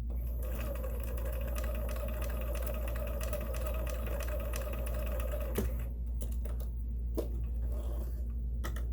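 Sewing machine running at a steady speed for about five and a half seconds, with rapid, even needle ticks over a hum, then stopping, followed by a couple of single clicks. It is sewing with a bobbin case whose tension screw is set too loose, so the stitches come out loose.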